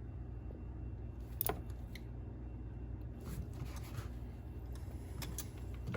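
A few scattered light clicks and taps of hand tools working on the engine, over a steady low hum.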